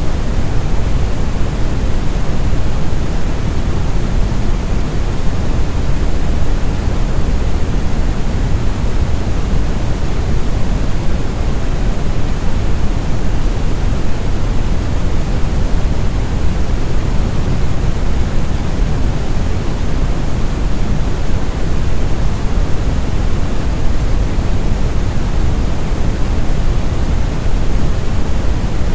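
Synthetic brown (red) noise: a steady, deep rumbling hiss, loudest in the bass and thinning toward the treble, unchanging throughout.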